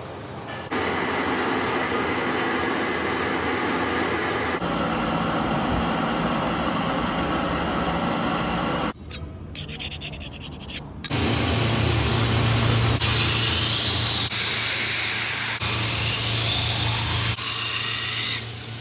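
Metal being ground or sanded with a power abrasive tool, a steady rasping hiss heard in several hard-cut segments. Near the middle, a couple of seconds of rapid regular knocking interrupt it. Later, faint rising whines sound over the grinding.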